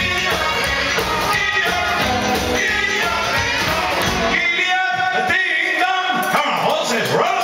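Live rock and roll band playing: electric guitars, drums and male singing. About four seconds in the bass and drums drop out, leaving the guitars and voices.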